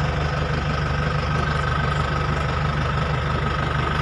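Isuzu Elf NKR minibus diesel engine idling steadily, heard from inside the cab, with the air-conditioning fan blowing through the dashboard vents.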